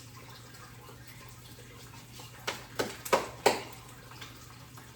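Egg frying in butter in a pan, a faint steady sizzle, with four sharp taps in quick succession a little past halfway.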